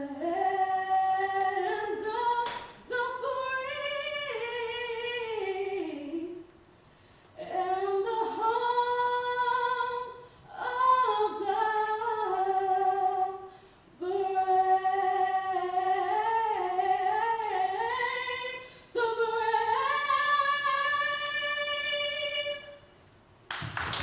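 A woman singing unaccompanied into a handheld microphone, a single melodic line in five long phrases with short pauses between them. Applause breaks in at the very end.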